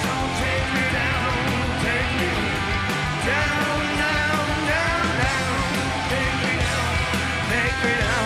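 Live rock band playing at full volume, with guitars, bass and drums under a male lead singer's voice.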